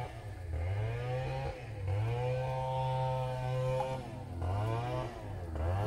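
A small engine revving up and easing off several times, holding a steady higher speed for about two seconds in the middle.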